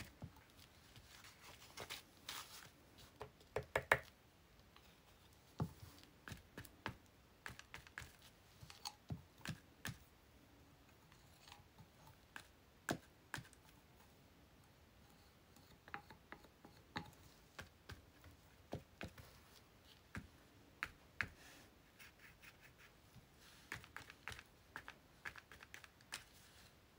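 Faint, irregular small taps and clicks of a paintbrush dabbing gold paint onto a paper envelope and tapping in a small paint bottle, with light handling of the bottle and paper.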